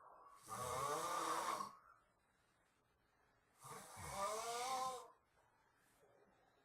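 A person snoring in the heavy sleep of exhaustion after a full day's work. There are two long snores about three seconds apart, each sliding in pitch.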